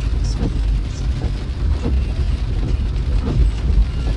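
A car driving, heard from inside: a steady low road and engine rumble with scattered light taps of rain on the body.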